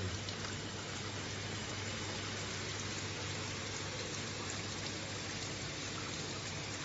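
Water spraying steadily from an eyewash station's nozzles, a continuous even rush, with a steady low hum beneath it. The spray is running under a flow-rate test as supply pressure climbs toward 2 bar.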